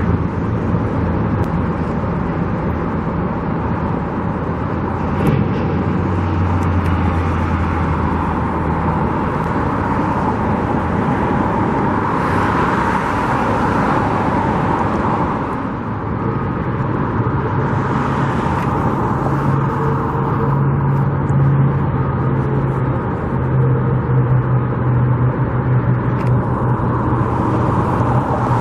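Steady motor-vehicle and engine noise of a busy construction site and road traffic, with a low engine hum that drops out and comes back at a higher pitch about halfway through, and louder swells of rushing noise as vehicles pass.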